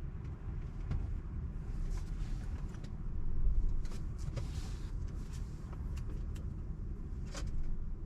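Steady low rumble of road and traffic noise inside a car's cabin, with a swell of noise about three and a half seconds in and a few faint clicks.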